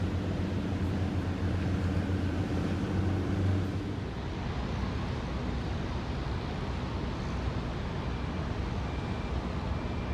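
Open-air ambience on a docked cruise ship's deck: a steady low hum for the first few seconds, then even wind-like noise.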